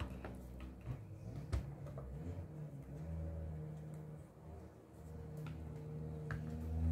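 Light clicks and knocks of a cordless drill's plastic housing halves and parts being handled and fitted together, over a low steady hum that swells twice.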